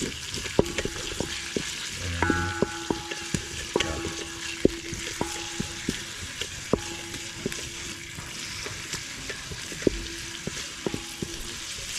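Sliced red onions sizzling as they fry in a large aluminium pot, stirred with a wooden spoon that knocks and scrapes against the pot's metal sides and bottom about twice a second.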